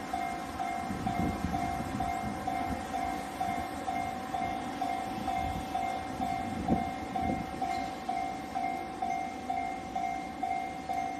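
Japanese level-crossing warning bell ringing steadily, about two dings a second, over the low rumble and wheel noise of a train running past on the tracks.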